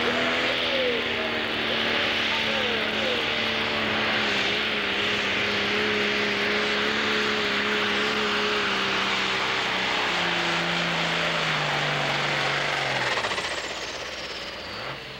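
Pro stock pulling tractor's diesel engine at full throttle dragging a weight-transfer sled: a loud, steady drone with a hissing roar over it. The engine note drops lower about ten seconds in as the pull goes on, and the sound falls away near the end.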